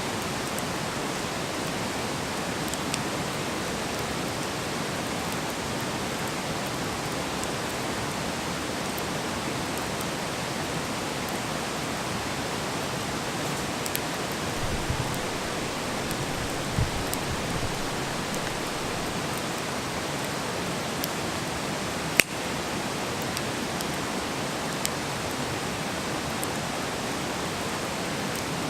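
Wood fire burning with a steady hiss, broken by occasional sharp crackles and pops. The loudest pop comes about three-quarters of the way in, and a few soft low thumps fall near the middle.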